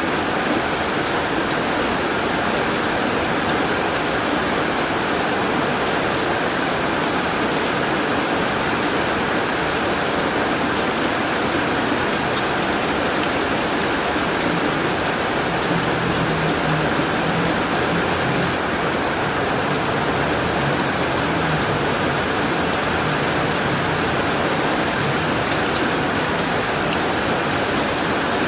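Steady heavy rain drumming on a tin roof, a dense even patter of drops.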